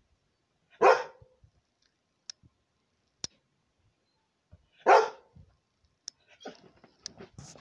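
A dog barking twice, single loud barks about four seconds apart, agitated at a dog on the TV screen. Faint clicks fall between them, and light scuffling follows near the end.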